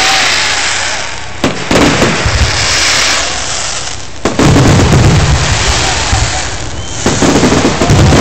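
Aerial fireworks going off: sharp bangs about a second and a half in and again about four seconds in, each followed by a long rumbling echo and crackling hiss, with more bursts starting near the end.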